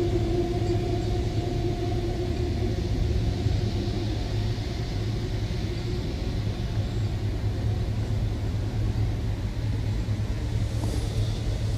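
Steady low outdoor rumble, with a humming tone that fades away over the first few seconds.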